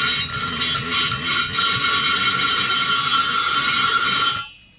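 High-speed rotary grinder running and cutting into the chainsaw cylinder's exhaust port, a steady high whine over a grinding hiss. It stops about four and a half seconds in.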